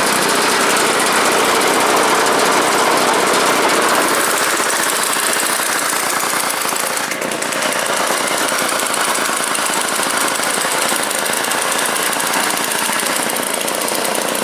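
Two-stroke engine of a Druzhba chainsaw driving a homemade snowblower, running loud and steady with a rapid pulsing note, dipping slightly about seven seconds in.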